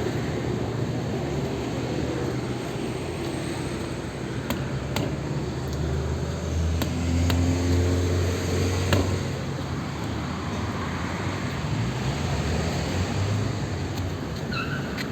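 A car engine running steadily with a low hum, with a few sharp, irregular clicks. The owner records it as a knock (стук).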